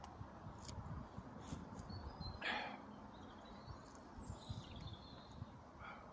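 Wind gusting over the microphone as a low, uneven rumble, with a few faint high bird chirps. A brief swish or rustle comes about two and a half seconds in.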